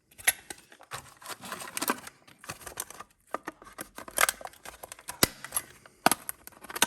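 Hands working a Hot Wheels blister pack, plastic and card crackling and clicking in an uneven string of sharp taps, with a denser crackle about a second in.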